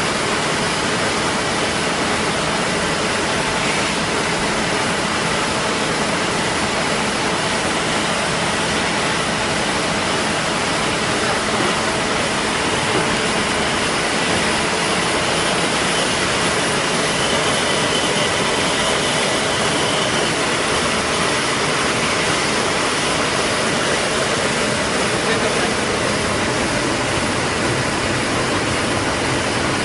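ZF-323 courier envelope making machine running steadily: a dense, even mechanical noise with a faint steady whine in it.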